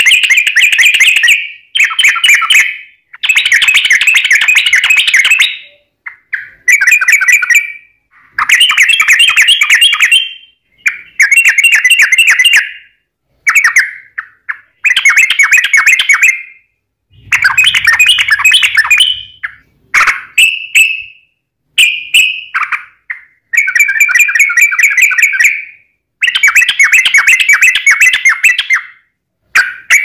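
Yellow-vented bulbul singing loud, fast, bubbling phrases of chattering notes, each lasting one to three seconds with short pauses between, over and over.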